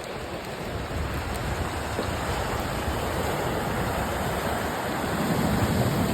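Sea waves washing on a stony shore, a steady rush of water that swells a little near the end.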